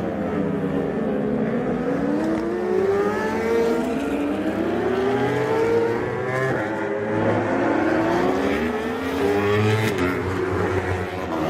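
Several World Superbike race motorcycles accelerating out of a corner one after another, their engines overlapping, each rising in pitch as it pulls away.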